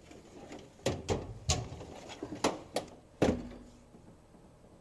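Steel tool chest drawers being slid shut and opened, with about half a dozen sharp metal clunks and rattles. The loudest clunk, about three seconds in, leaves a short metallic ring.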